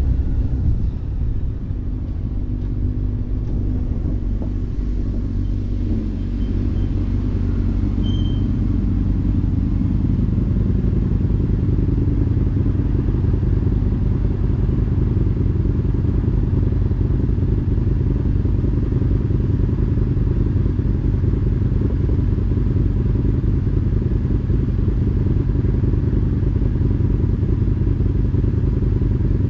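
Motorcycle engine heard close up, easing down in the first few seconds as the bike slows, then idling steadily with a low rumble.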